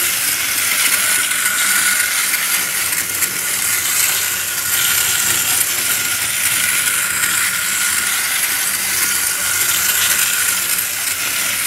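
Capsule Plarail Doraemon tram, a two-car wind-up toy train, running around curved plastic track: its clockwork gearbox whirs steadily with a high, even rattle.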